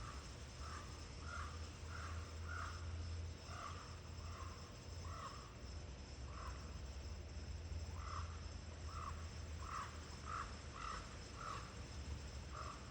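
A crow cawing over and over in two long runs of short, harsh caws, about two a second, with a pause of a couple of seconds in the middle. A steady low wind rumble sits underneath.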